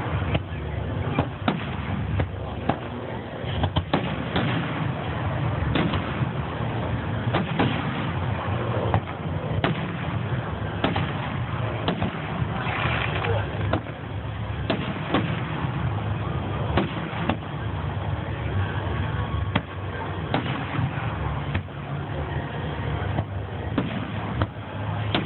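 Fireworks display: aerial shells bursting and launching in a steady string of sharp bangs, about one or two a second, over a continuous low rumble.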